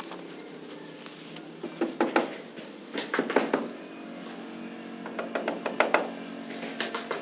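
Several quick runs of sharp knocks over a steady low hum.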